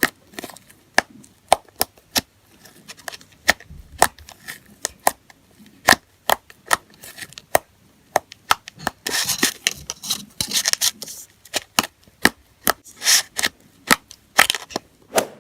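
Slime being squeezed and poked, giving sharp clicking pops of trapped air a few times a second, with a denser crackling stretch about two-thirds of the way through.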